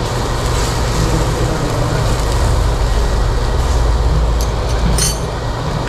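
Steady low rumble and rushing noise of the extraction fan drawing through the duct over the tabletop barbecue grill, with a short clink of a knife against the plate about five seconds in.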